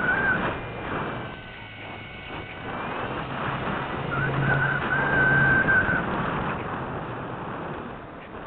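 Air rushing past a small onboard camera on a low-flying model glider, with a thin high whistle at the start and again for a couple of seconds midway.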